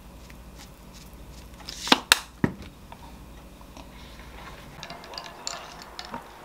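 Faint clicking of a sesame seed grinder over a plate of rice, then three sharp knocks in quick succession about two seconds in, the loudest sounds. Light clatter of wooden chopsticks and dishes near the end.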